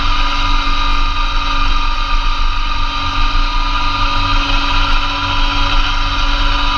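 Massey Ferguson GC2300 compact tractor's diesel engine running steadily, driving a PTO-powered Blizzard B48 snowblower, with a continuous hum and a steady whine.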